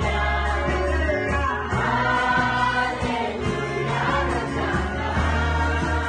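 A congregation of men and women singing a Garo gospel song together. The singing goes over an accompaniment with deep bass notes and a steady beat.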